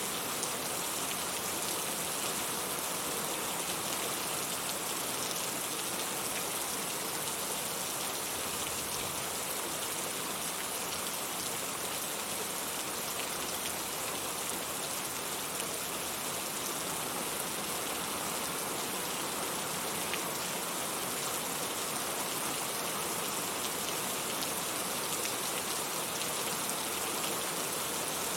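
Heavy rain falling steadily, an even hiss of drops on surfaces with no thunder.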